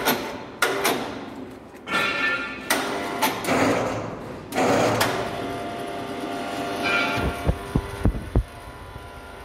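Clanks, knocks and scraping from the steel body of a wheeled mini rice mill machine as it is pushed and manhandled into place by hand, with a run of low thuds near the end.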